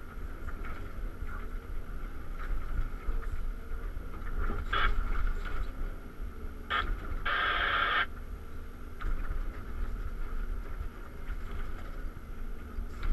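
Cat 323 excavator heard from inside its cab while the bucket digs into stony ground: the diesel engine's low steady running with a steady whine above it. There are two short bursts of harsher noise, one about five seconds in and a longer one around seven to eight seconds in.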